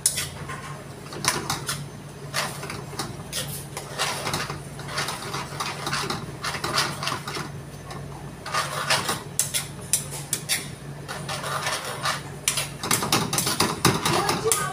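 A metal ladle clanking and scraping against a wok as food is stirred and tossed over a gas burner, with frequent sharp clinks throughout. A steady low hum runs underneath.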